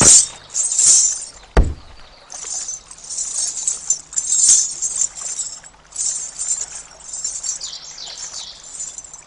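Ghungroo ankle bells jingling in short, repeated shakes as the string of bells is tied around an ankle. There is one dull thump about one and a half seconds in.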